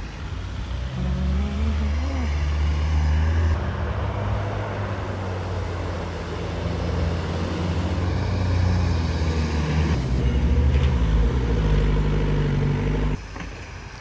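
SUV engines revving under load as off-roaders climb out of a shallow river onto sand, with a rising rev about a second in. The engine note changes abruptly a few times, and it drops in level near the end.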